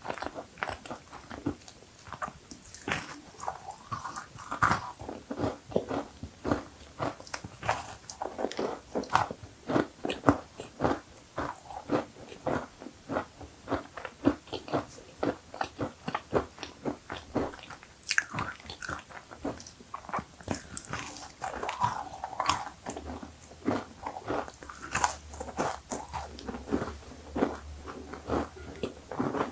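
Close-miked biting and chewing of crisp cookies: a steady run of crunches and crackles, several a second.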